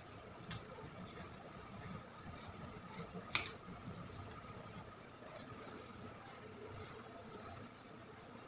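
Tailoring shears cutting cloth: an irregular run of soft snips and clicks from the blades, with one sharper click about a third of the way in.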